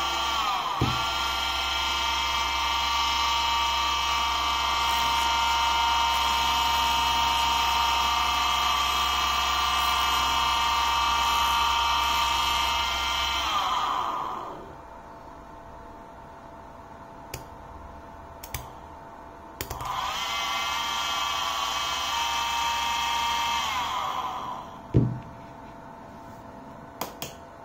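Large brushed DC motor run from a 24 V switching power supply. It spins up about a second in, runs with a steady high whine, and winds down with falling pitch at about 14 seconds. After a few small clicks it runs again for about four seconds and winds down, followed by a sharp click.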